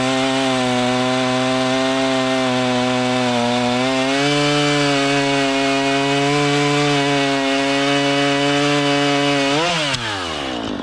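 Two-stroke chainsaw held at high revs while cutting through wood. The revs dip slightly and pick up again partway through, then fall away sharply near the end as the throttle is released.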